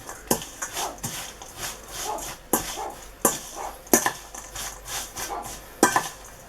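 A dog barking in the background, with sharp knocks and clinks of a spoon mixing pudding ingredients in a bowl.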